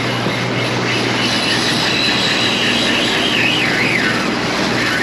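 Boat's outboard engine running steadily while trolling, under the rush of wind and churning wake water. A wavering high whistle rises above it from about two seconds in.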